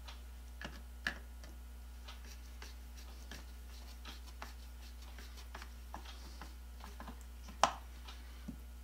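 Faint, scattered clicks and ticks of a hand screwdriver turning a screw into the plastic handle housing of a Black & Decker ¼-inch drill, with one sharper click about three-quarters of the way through.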